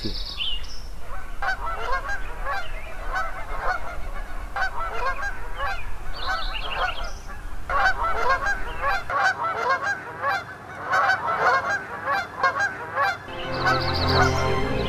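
A flock of Canada geese honking, many overlapping calls one after another. Music comes in near the end.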